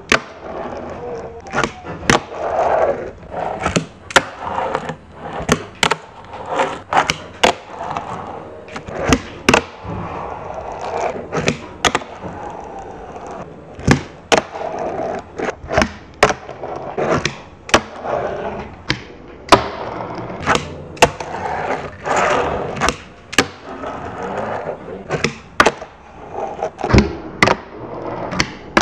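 Fingerboard being popped, flipped and landed on a tabletop, with sharp clacks at one to two a second from the deck and trucks hitting the surface. Between the clacks the small wheels make a rolling noise.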